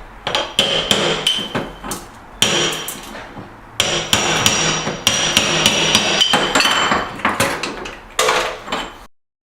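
Hammer blows knocking out ceramic bullnose border tile from around an old sink, with many sharp, ringing knocks in quick, uneven runs. The sound cuts off abruptly near the end.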